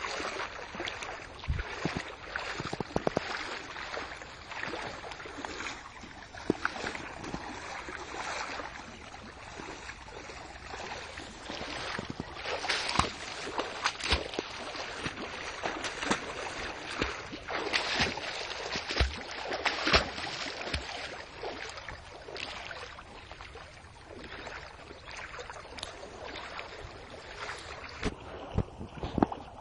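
Floodwater splashing and sloshing: a steady rush of water with frequent irregular splashes.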